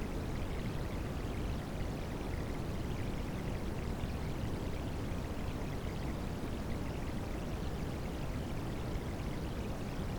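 Rain sounds mixed with white noise: a steady, even rushing hiss that stays the same throughout, weighted toward the low end, with no single drops standing out.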